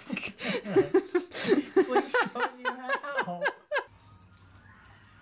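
Giggling laughter in a quick run of high-pitched 'ha' bursts, which stops short near the end.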